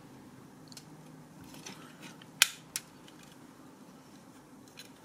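Plastic parts of a Mastermind Creations R31 Ater Beta transforming robot figure being handled: faint rubbing with a few sharp clicks, the loudest two close together about two and a half seconds in, as pieces are pressed into place.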